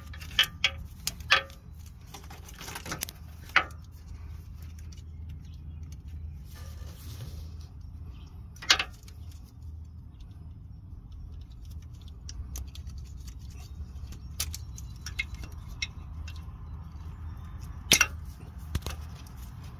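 Scattered sharp plastic clicks and rattles of an oxygen sensor's wiring connector being handled and unplugged, the loudest snaps about nine seconds in and near the end, over a steady low hum.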